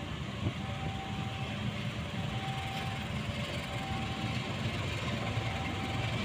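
KAI CC206 diesel-electric locomotive running at low speed as it approaches and passes, hauling passenger coaches, its engine rumble growing slightly louder. A brief knock sounds about half a second in.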